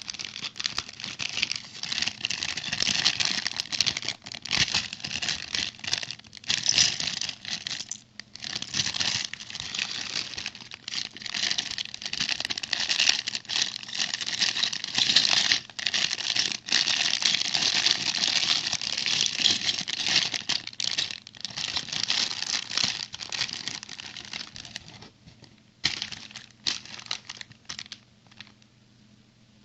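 Packaging being handled and opened, crinkling and crackling without a break. It dies away near the end, leaving a few sharp clicks.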